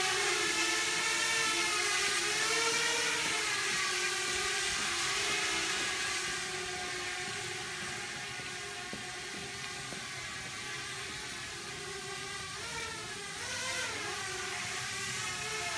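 Small quadcopter drone (Parrot Bebop type) in flight, its propellers giving a buzzing whine whose pitch wavers up and down as it manoeuvres. It grows fainter through the middle, then comes nearer again with quick swoops in pitch near the end.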